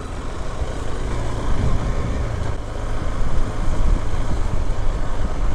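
Adventure motorcycle running at low speed over a wet, grassy dirt trail, with a steady engine note and a heavy low rumble.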